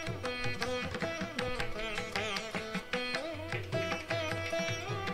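Indian classical-style instrumental background music: plucked strings with bending, gliding notes over a steady rhythm of hand drums.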